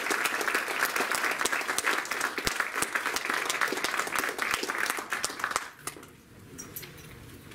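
Audience applauding, then dying away to a few scattered claps near the end.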